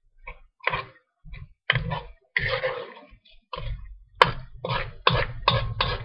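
A metal spoon scraping and knocking against a metal wok while stirring chicken stir fry in sauce. It is a run of about ten strokes that come faster in the second half, about two or three a second, with one sharp clank a little after four seconds as the loudest.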